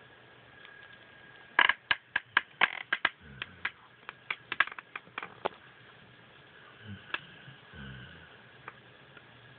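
A sleeping dog's low snores, a few faint drawn-out breaths, mixed with a quick irregular run of loud sharp clicks lasting about four seconds, then a couple more clicks near the end.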